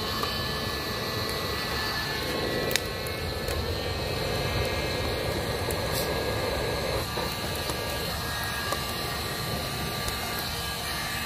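Fire burning inside a hollow log: a steady rushing noise, with sharp pops from the burning wood about three seconds in and again about six seconds in.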